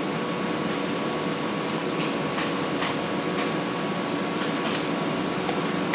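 Steady room hum with a faint constant tone under it, and scattered faint light clicks as wires and a plug-in terminal block connector are handled on a circuit board.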